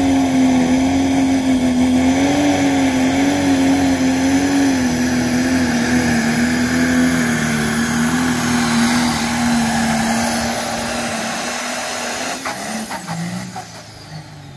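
Pro Stock pulling tractor's diesel engine running flat out under load while pulling the sled, a loud, steady high note that wavers slightly. About ten seconds in the note drops away and the sound dies down as the pull ends.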